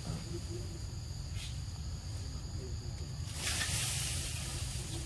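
Outdoor ambience: a steady high insect drone over a low rumble. About three and a half seconds in, a hissing rush lasts about a second.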